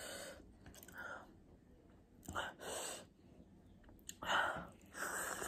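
About five short, breathy puffs of air drawn in and blown out through the mouth, a person hissing against the burn of spicy ramen while eating.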